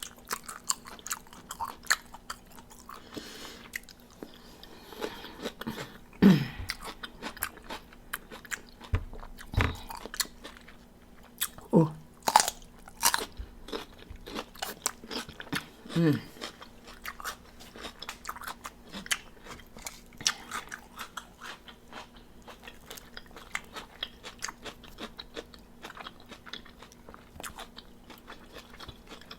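Close-up crunching, biting and chewing of crispy battered fried chicken wings, with many short crackling crunches and a couple of brief 'oh' and 'mm' sounds.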